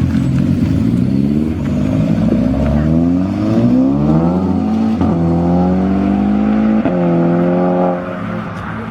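A car engine accelerating hard through the gears: the pitch climbs, drops with an upshift about five seconds in, shifts again about two seconds later, then fades near the end.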